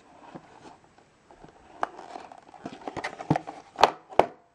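Small cardboard toy boxes handled in the fingers, with light rustling and small taps, then two sharp knocks near the end as a box is set down against a wooden tabletop.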